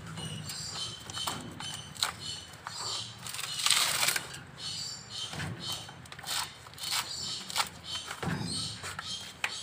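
A sun bear tearing the fibrous husk off a coconut with its claws and teeth: irregular crackling, ripping and scratching, with a louder tearing burst a little under four seconds in.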